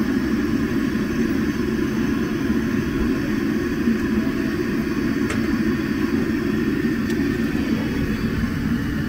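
High-pressure LPG burner roaring steadily under a large iron kadhai of hot frying oil.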